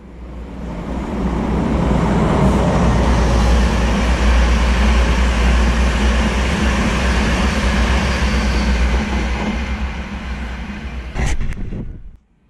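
LNER InterCity 225 express of Mark 4 coaches passing at speed on the electrified main line: a rushing roar of wheels on rail with a deep rumble. It builds over about two seconds, holds for several seconds and fades. A brief sharp noise comes near the end, just before the sound cuts off.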